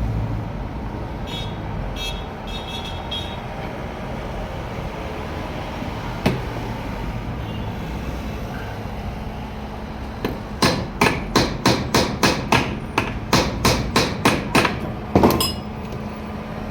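Hammer striking metal during starter motor repair: a single knock, then about five seconds later a rapid run of roughly eighteen ringing blows, about three to four a second, over a steady background hum.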